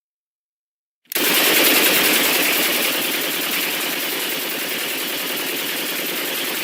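Machine gun firing a long continuous burst of very rapid shots, starting abruptly about a second in after silence.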